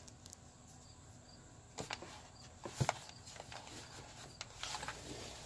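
A cardboard product box handled on a table: a couple of light knocks about two seconds in, one sharper tap near the middle, and a scraping rustle near the end.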